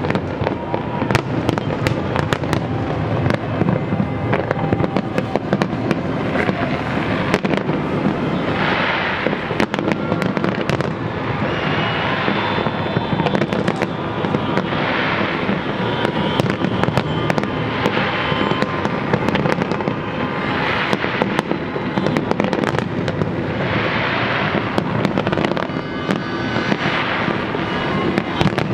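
Fireworks display in a continuous barrage: rapid overlapping bangs, with a swell of hissing crackle every few seconds.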